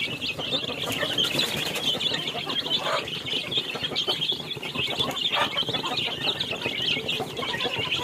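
A crowd of young chicks peeping continuously and overlapping while they feed.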